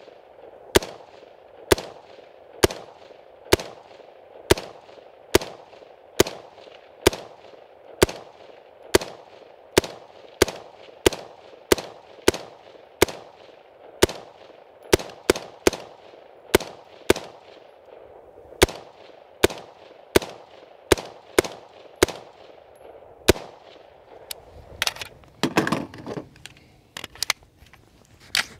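BCM AR-15 rifle firing steady semi-automatic shots, about one a second and a little quicker in the middle, each crack followed by a short echo. The rifle is running dry, never oiled or cleaned and heavily carbon-fouled. Near the end the steady pace breaks into a looser cluster of sharp cracks and a brief rustling noise.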